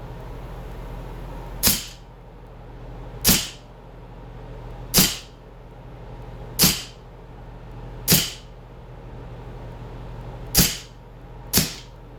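CO2-powered replica 1911 pistol fired seven times into a pumpkin, each shot a sharp crack, about one every one and a half seconds, the last two closer together.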